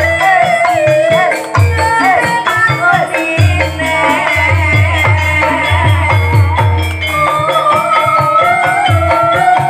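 Javanese gambang suling ensemble playing: a bending, wavering melody line over many quick struck notes, with runs of low drum strokes and a rattling percussion.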